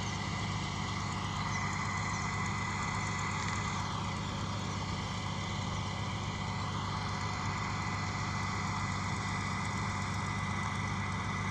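Rice combine harvester's engine running steadily at an even pace.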